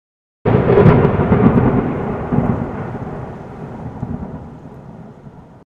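A thunderclap: it starts suddenly and loudly, rolls with a few rumbling swells, fades over about five seconds, and cuts off abruptly.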